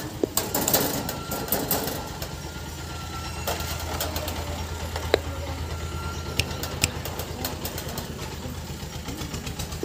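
A steady low mechanical hum like a running motor, pulsing rapidly, with a cluster of clicks and rattles in the first two seconds and a few sharp ticks later on.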